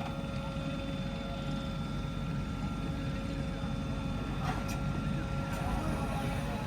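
Heavy diesel machinery engine running steadily with a low rumble and a steady whine above it, and a brief sharp knock about four and a half seconds in.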